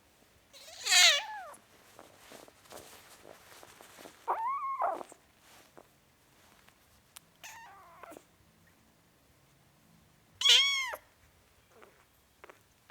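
Four-week-old kitten meowing four times: short, high-pitched meows, the first falling in pitch and the last one loud.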